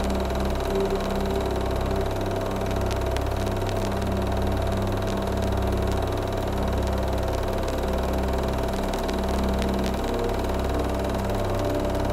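A steady low drone with several held tones and a slowly pulsing bass, with scattered faint clicks over it.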